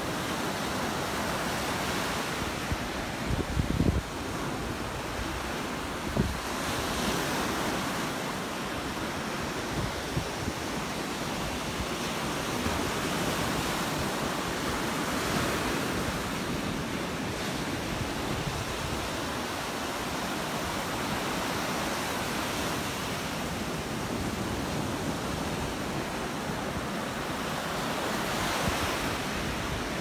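Small surf waves breaking and washing up a sandy beach, a steady wash that swells and eases every several seconds. Wind buffets the microphone with a couple of brief low rumbles a few seconds in.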